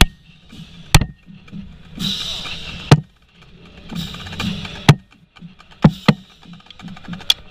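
A few sharp single drumstick taps, one every second or two, loud and close on the marching tenor drum set, over a faint steady background of stadium noise.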